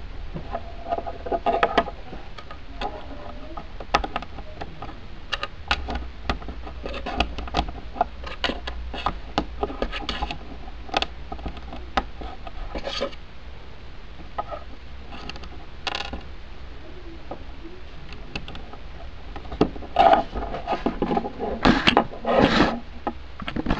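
Small plastic LEGO bricks being handled and pressed together on a tabletop: irregular clicks, taps and rubbing, with a louder cluster of clicks near the end.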